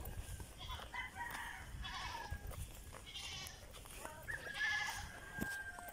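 Farm animals calling: a series of short, wavering calls about once a second, with one longer drawn-out call in the second half.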